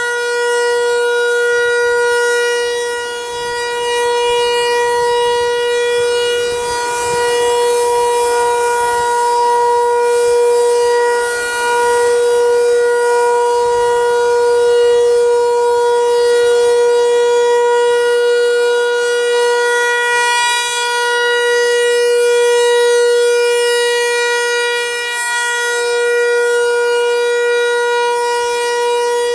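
Federal Signal 508 outdoor warning siren sounding its steady alert signal: one unbroken pitch with overtones. It swells and fades every eight seconds or so as the directional siren head rotates.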